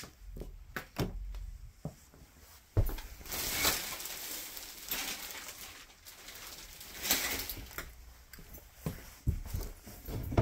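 A shower curtain slid along its rod, its rings scraping in two rustling sweeps, about three seconds in and again about seven seconds in. Scattered knocks and footsteps, with one sharp knock just before the first sweep.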